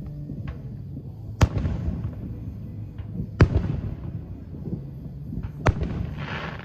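Aerial fireworks shells bursting: three loud bangs about two seconds apart, each followed by crackling, with a few fainter pops in between. A steady low hum runs underneath.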